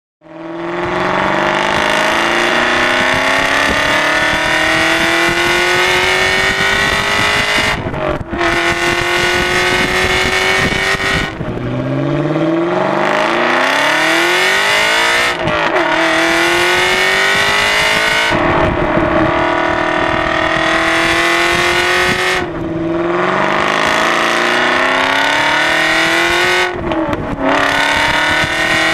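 Aston Martin V8 Vantage Roadster's V8 engine through a Larini sports exhaust, accelerating hard: the note climbs steadily, then drops back at each of about six gear changes before climbing again.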